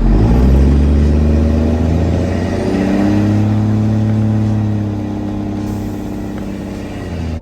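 Garbage truck's engine revving: its pitch sinks over the first two seconds, climbs again about three seconds in, then slowly settles.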